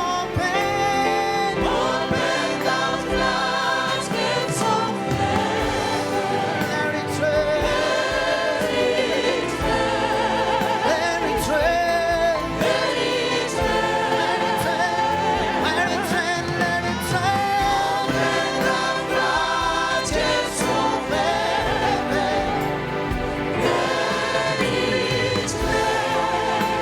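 Gospel choir singing with musical accompaniment.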